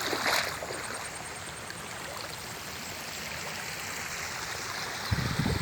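Forest stream gushing steadily over rocks, swollen with monsoon water. A brief low rumble comes near the end.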